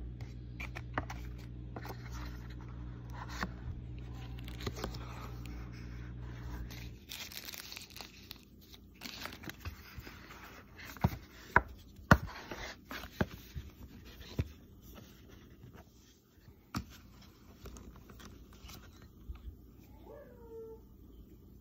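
Unboxing handling: cardboard box and foam insert rustling, with sharp clicks and taps as the plastic earbud charging case is handled and opened and an earbud is lifted out. A steady low hum runs under the first seven seconds, then stops.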